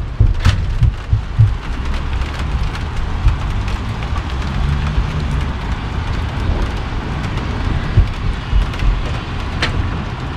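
Rain falling steadily, with an uneven low rumble underneath and a few sharp ticks.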